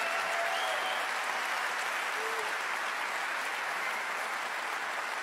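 Large audience applauding, an even, steady clatter of many hands.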